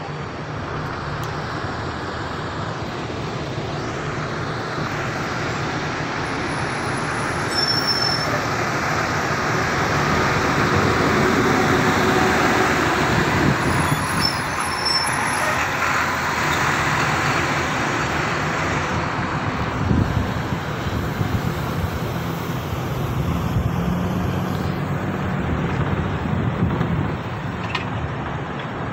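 Running noise of a bus in motion heard from on board: engine and road noise with passing traffic, swelling toward the middle and easing near the end. There is a brief low bump about two thirds of the way through.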